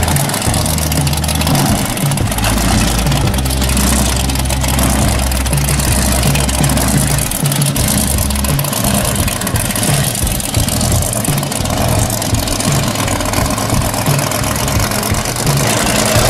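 Supercharged V8 of a 1969 pro street Camaro idling steadily.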